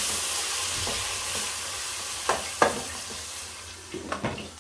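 Sliced onions sizzling in oil in an aluminium pot, stirred with a wooden spatula that knocks against the pot twice about halfway through. Near the end a glass lid is set on the pot with a few clinks, and the sizzle grows quieter.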